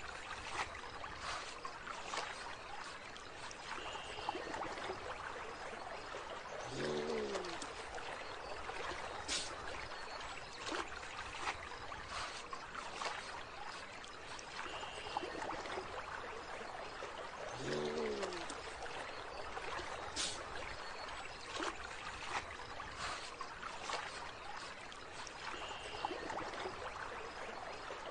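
Steady running water, like a trickling stream, with scattered faint clicks. A short low sound that slides in pitch comes back about every eleven seconds.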